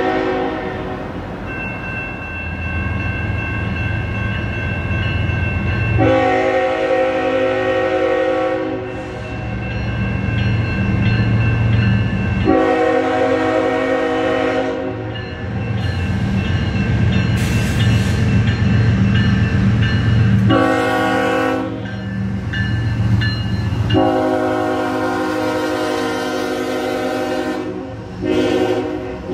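Canadian National diesel locomotive's air horn sounding long, long, short, long, the grade-crossing signal, with the tail of an earlier blast at the start. Under it is the low rumble of the locomotives' diesel engines as the train passes.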